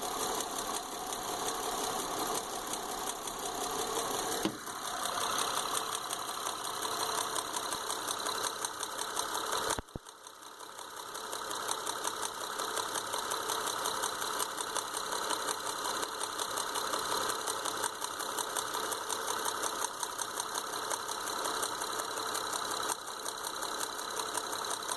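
2005 Honda Odyssey's 3.5-litre V6 idling rough with a rapid, even ticking pulse: a misfire from the front middle spark plug, which has pulled out of its threads in the cylinder head. The sound drops out briefly about ten seconds in, then returns.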